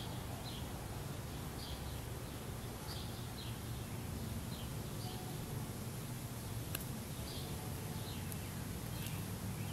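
Outdoor ambience: short high chirps repeating irregularly about once a second over a steady low hum, with a couple of faint clicks in the second half.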